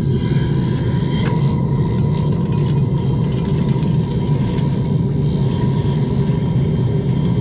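Homemade waste-oil-fired aluminum foundry burning at full heat: a loud, steady rumbling roar of the oil flame and its motor-driven air supply, with a faint steady whine over it. A few light ticks come between about two and five seconds in.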